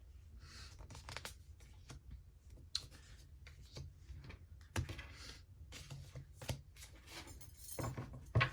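Soft scattered clicks and rustles of small things being handled close to the microphone, a handful of them spread out over a few seconds, over a faint room hum.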